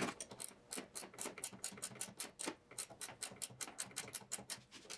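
Ratchet wrench clicking in quick, uneven strokes, about eight clicks a second.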